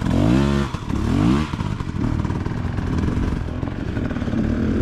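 KTM EXC enduro dirt bike engine revved twice in quick rising-and-falling blips, then lugging at low revs in an uneven rumble as it climbs a steep rocky trail.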